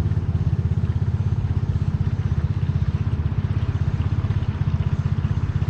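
GAZelle 3302's ZMZ-405 four-cylinder petrol engine idling steadily with an even, fast exhaust pulse.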